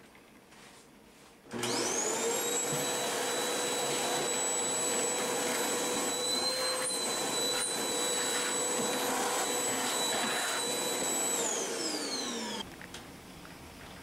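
Vacuum cleaner motor powering a cyclone dust collector switches on about a second and a half in, spins up with a quickly rising whine, and runs steadily with a high whine over the rush of air. Near the end it is switched off and winds down with a falling whine.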